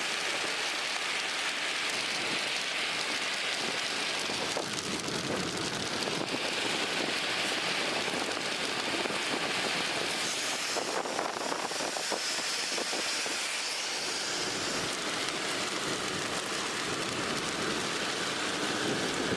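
Steady hiss of heavy rain beating on a vehicle.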